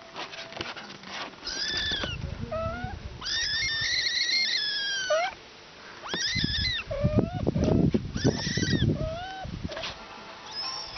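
Cat meowing repeatedly: a string of rising-and-falling meows, one of them drawn out for about two seconds, with low rumbling noise under the later calls.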